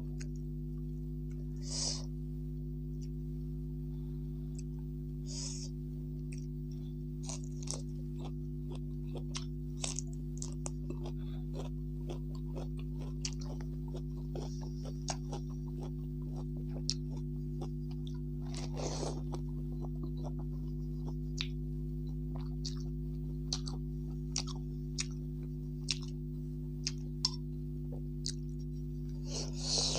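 A person chewing and crunching food (chili-dressed Chinese cabbage leaves and noodle soup), with many short clicks from utensils against a bowl and a louder breathy burst about two-thirds of the way in, over a steady low hum.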